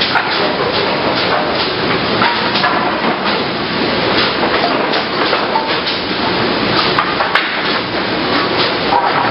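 Cursal automatic optimizing cross-cut saw and its board conveyors running, a dense industrial din with irregular sharp wooden clacks and knocks several times a second as boards are fed and moved along.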